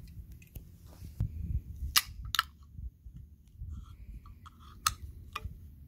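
A few sharp clicks or knocks, the loudest about two seconds in and again near the end, over a low rumble.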